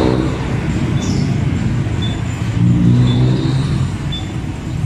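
Motor vehicle engine running with a steady low rumble, and a short high beep repeating about once a second.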